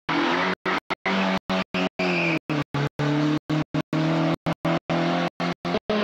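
Small rally car's engine running hard through a hairpin, with a brief high tyre squeal about two seconds in. The recording keeps dropping out for split seconds, about three times a second.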